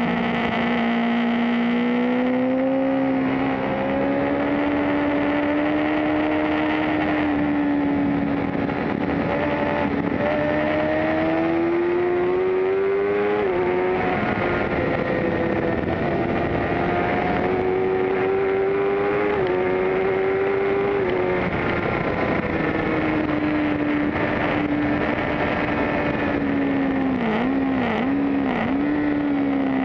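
Suzuki GSX-R750's inline-four engine pulling hard on track, its pitch climbing and falling through the corners, with sudden steps down in pitch around the middle at gear changes and a few quick dips near the end. Wind rush runs under it.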